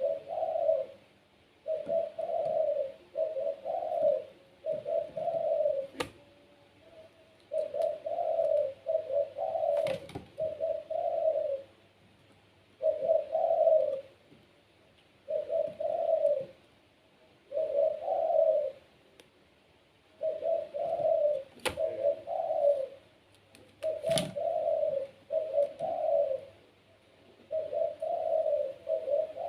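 Puter pelung dove (a domestic Barbary dove) cooing persistently, in repeated phrases of two or three coos about every two seconds. A few sharp clicks fall between the phrases.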